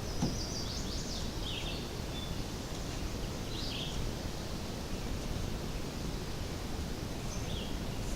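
Outdoor ambience: a steady low rumble of background noise with a few short bird chirps, sliding in pitch, heard a few times.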